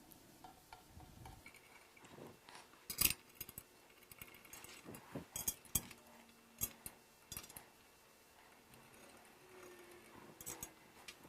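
Irregular light metallic clicks and clinks of screws and a screwdriver as the screws go back into the pump housing, with no steady rhythm and the sharpest tap about three seconds in.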